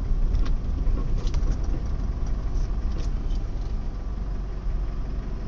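Mitsubishi Triton pickup running with a steady low engine rumble and a few faint clicks: the noise the owner takes for abnormal.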